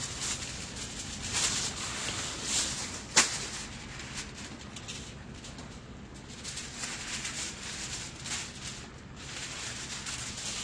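Aluminium foil crinkling and rustling as a sheet is pulled off the roll and handled, in irregular bursts, with one sharp click about three seconds in.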